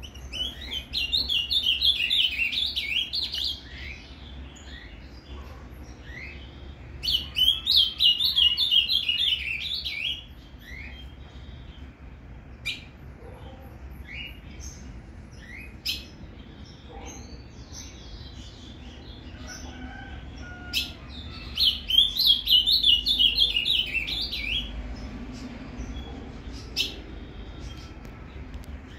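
Ultramarine grosbeak (azulão) singing its Paraná-type song: three fast, warbled phrases of about three seconds each, one near the start, one about a quarter of the way through and one about three-quarters through. A few short sharp clicks fall in the gaps between phrases.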